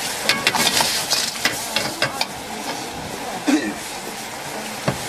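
Metal wok ladle clacking and scraping against a wok as clams in sauce are stir-fried, with a steady sizzle underneath. There is a quick run of clicks in the first two seconds and a single knock near the end.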